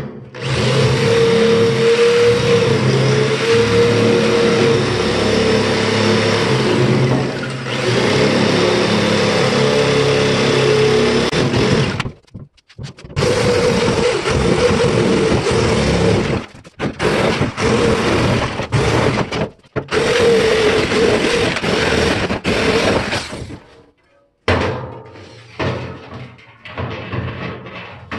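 Handheld electric power tool cutting through sheet steel around the rim of a steel drum, with a wavering motor whine under load. It runs steadily, stops briefly about 12 s in, then runs in shorter spells with pauses until about 24 s in. After that come lighter clanks and knocks as the cut-off steel lid is handled.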